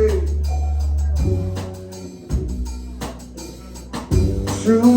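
Live rock band playing an instrumental passage: a deep held bass line under guitar notes and a few percussion hits.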